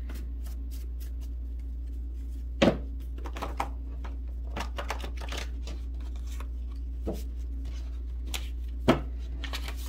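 A deck of oracle cards being shuffled and handled by hand: scattered soft clicks and flicks of cards, with two sharper taps, one about a quarter of the way in and one near the end.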